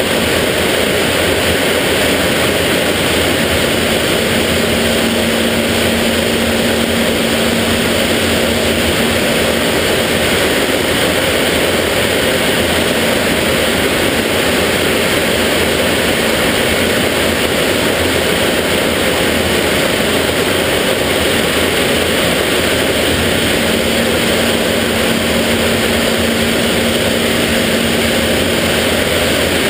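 Cockpit noise of a BAC Jet Provost in flight: its Viper turbojet and the rushing airflow make a loud, steady roar, with a faint low hum that comes and goes twice.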